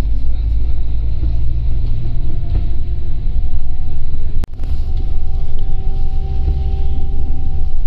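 Low, steady engine and road rumble heard from inside a moving vehicle, with a faint engine hum over it. The sound cuts out briefly about halfway through.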